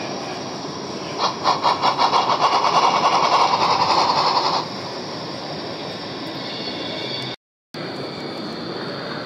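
Model steam locomotive's sound decoder playing rhythmic steam chuffing that quickens, starting about a second in and stopping about three and a half seconds later, over steady exhibition-hall background noise.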